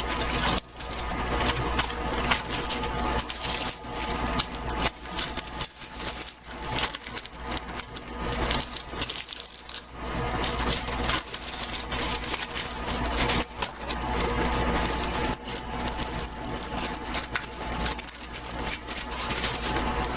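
Paper being handled, folded and creased into a pan-lining pattern: irregular crinkling and rustling over a steady low hum.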